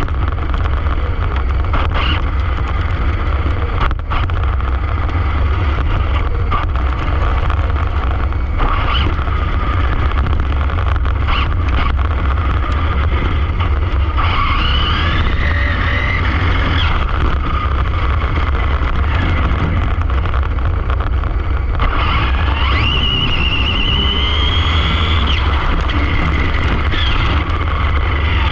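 Arrma Infraction 6S brushless RC car running under a heavy low rumble of wind and tyre noise, with a high motor whine that rises and falls with the throttle a couple of times and scattered knocks over bumps.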